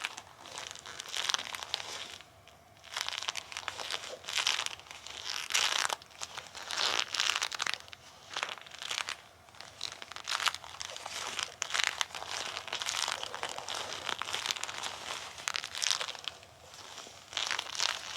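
Bilpearl rubber gloves on hands being rubbed together hard and pressed and pulled apart, the rubber sticking and rubbing in repeated bursts about every second, with short pauses between.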